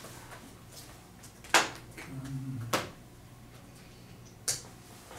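Sharp clicks and knocks of cables and equipment being handled and unplugged at a table, three of them, the loudest about a second and a half in.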